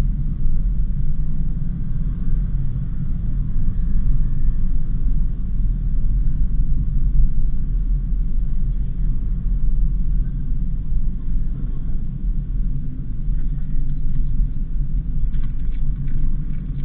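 Steady low rumble of a Daihatsu Sigra on the move: road and engine noise.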